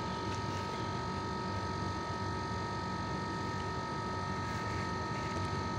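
A steady machine hum with several constant high tones held over an even background noise, and a few faint soft ticks.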